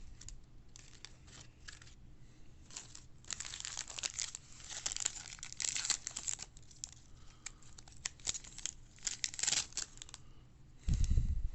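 A baseball card pack's wrapper being torn open and crinkled by hand, in irregular crackling bursts. A short low thump comes near the end.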